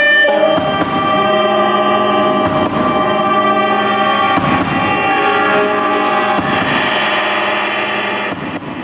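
Improvised live music from baritone guitar played through effects: layered, sustained drone tones with distortion and echo.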